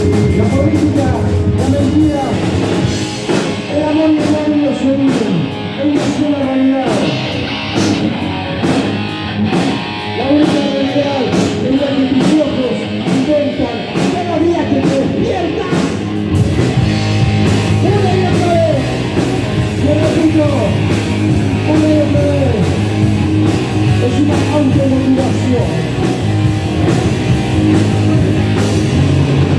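Rock song with electric guitar, drums and a sung voice; the bass and drums fill out about halfway through.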